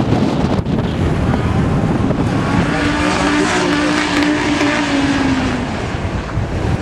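Rally car engine running under power, heard from high above. Low wind rumble on the microphone comes first, then the engine note comes through clearly about two and a half seconds in, dips slightly in pitch and fades just before the end.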